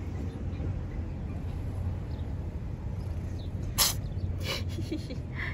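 Street cat sneezing: one sharp, loud sneeze about four seconds in, followed by a second, weaker burst just after, over a steady low rumble.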